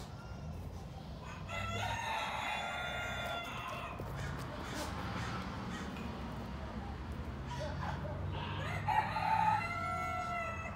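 A rooster crowing twice: one long crow about a second and a half in and another near the end, each held and then falling away at the close.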